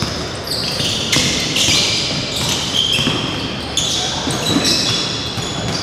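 Basketball game on a hardwood gym floor: a ball being dribbled, and sneakers squeaking in short, high bursts as players cut and shuffle.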